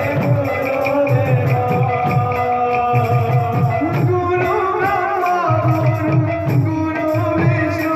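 Odia kirtan music: devotional singing over a steady beat of drum strokes, with a long held note coming in about four seconds in.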